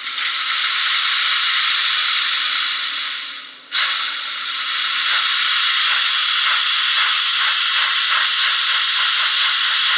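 HO-scale model steam tank locomotive's ESU sound decoder playing a steam hiss through its small speaker. The hiss fades and stops just under four seconds in, then starts again abruptly, with faint regular beats about twice a second later on.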